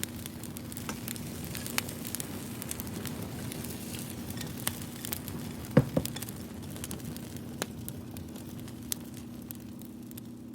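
Wood fire crackling, with scattered sharp pops (the loudest about six seconds in) over a steady low hum.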